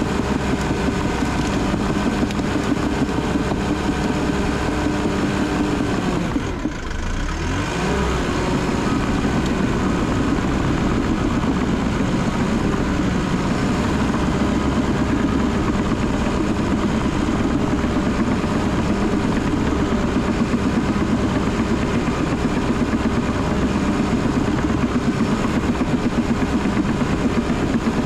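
Cat D3 bulldozer's diesel engine running steadily under load while the dozer pushes brush. About six seconds in, the engine note briefly drops and dips in level, then climbs back to its steady pitch.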